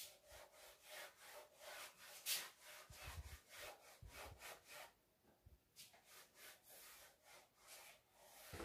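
Cloth wiping dust off a flat-screen TV screen: faint, repeated rubbing strokes, with a short pause about halfway through.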